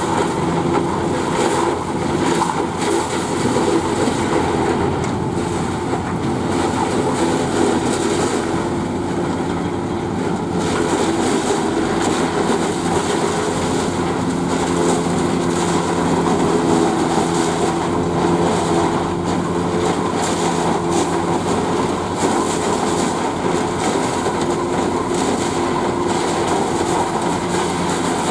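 Zetor tractor diesel engines running steadily under load while an SKPU 220 trailed forage harvester chops maize and blows it through its spout into a silage wagon. The sound is a constant drone with a noisy, rattling layer over it.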